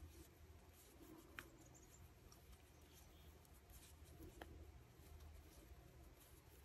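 Near silence: faint rustle and light clicks of knitting needles and yarn as stitches are worked, with two slightly sharper ticks about a second and a half and four and a half seconds in.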